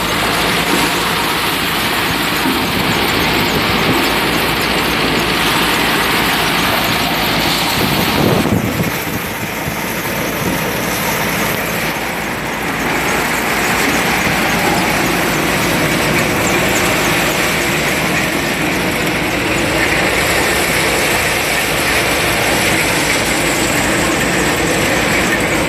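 Engine-driven soybean threshing machine running steadily: a loud, continuous mechanical noise from the engine and threshing works, with a brief surge and slight drop about eight or nine seconds in.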